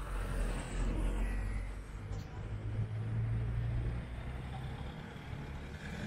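Engine and road noise of a moving songtaew pickup-truck bus, heard from its open rear passenger bed: a steady low rumble with tyre and wind noise, the engine note swelling in the middle and easing off again.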